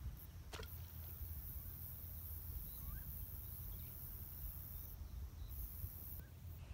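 Quiet riverbank ambience: a steady low rumble with a few faint bird chirps, and one short sharp sound about half a second in.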